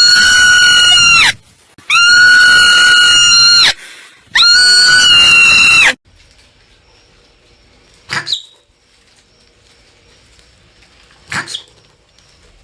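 Marmot giving three long, loud, high-pitched calls, each held about two seconds at one steady pitch, followed by two short, much quieter calls.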